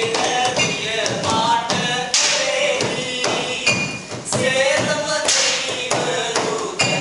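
Voices singing a chant-like line over frequent sharp percussive taps and thumps.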